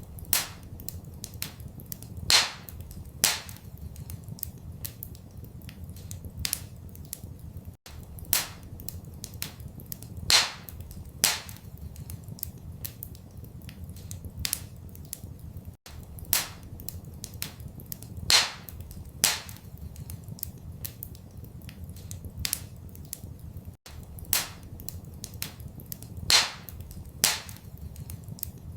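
Wood fire crackling in a fireplace: a run of small sharp crackles with a few loud pops, over a steady low rumble. The same few seconds of crackling repeat about every eight seconds, with a brief dropout at each seam.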